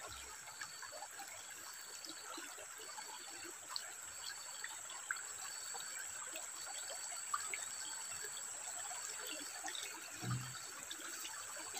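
Shallow stream flowing over gravel, a quiet steady trickle with faint small ticks; a short low voice sound about ten seconds in.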